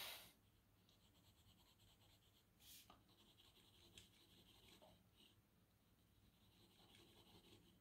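Very faint scratching of a pencil lead shading on paper, with a few small strokes about three and four seconds in.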